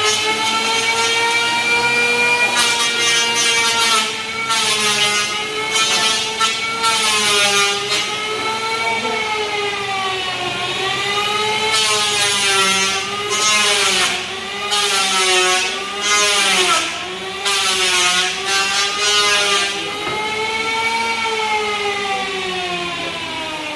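Hand-held electric power tool cutting wood: its motor whines steadily, the pitch sagging and recovering each time it bites into the timber, with repeated short bursts of harsh cutting noise from about two seconds in until a few seconds before the end.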